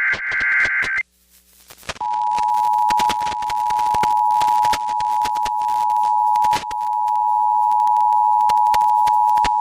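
Emergency Alert System broadcast tones: the end of the warbling SAME digital header burst, a second's pause, then the steady two-tone EAS attention signal (853 and 960 Hz together) starting about 2 s in and holding. Short crackling clicks run over the tones.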